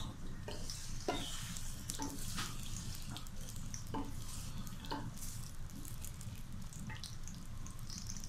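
Sliced onions sizzling as they begin to fry in hot oil in a metal pot, with a handful of short knocks and scrapes from stirring. A steady low hum runs underneath.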